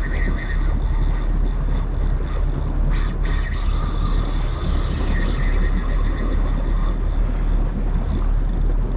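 Steady engine rumble from the boat's motor running, mixed with wind and water noise.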